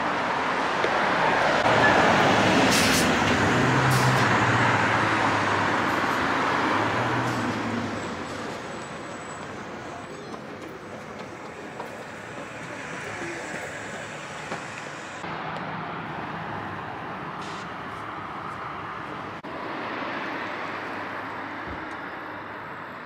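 Road traffic noise: a vehicle passes, louder in the first several seconds and fading away, then a steadier, quieter traffic hum.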